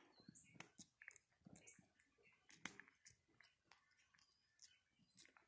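Faint, close crackling and clicking of a Java macaque's fingers parting and pulling through a person's hair, irregular sharp ticks several times a second.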